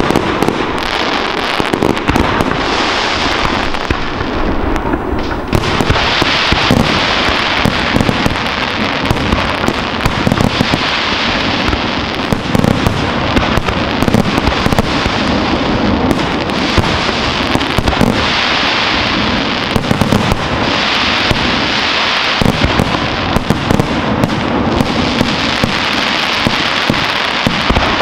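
Fireworks display at full tempo: aerial shells bursting one after another in a dense, unbroken barrage of bangs, with crackling stars hissing between them.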